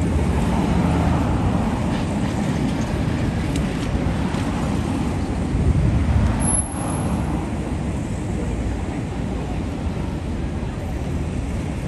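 City street traffic: a steady mix of vehicle engines and tyre noise from passing road traffic, briefly louder about six seconds in.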